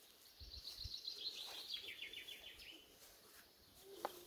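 A songbird singing one phrase of about two seconds: a run of high notes sliding down into a rapid trill. A single sharp click comes near the end.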